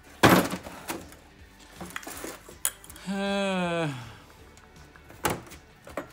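Two-stroke outboard engine parts clunking and clinking on a metal workbench as they are handled: one loud knock just after the start, then scattered clicks. About three seconds in, a man gives a wordless vocal sound about a second long that falls in pitch.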